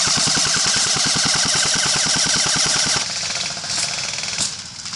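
Airsoft electric rifle firing a long, rapid full-auto burst of about three seconds. A fainter, faster burst follows.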